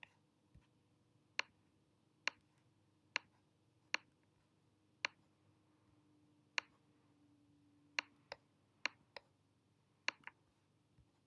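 Computer mouse clicking about a dozen times at uneven intervals, some in quick pairs, as anchor points are placed one by one while tracing a shape.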